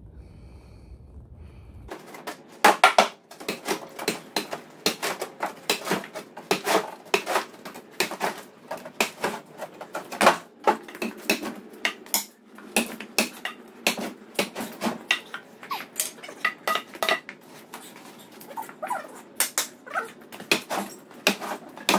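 Oak rounds being moved about in a pickup truck bed: a quick, irregular run of wooden knocks and clatter, several a second, starting about two seconds in.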